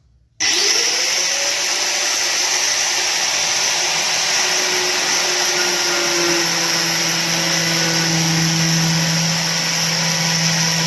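Electric grinder switched on about half a second in, spinning up quickly and then running steadily at full speed with a high whine.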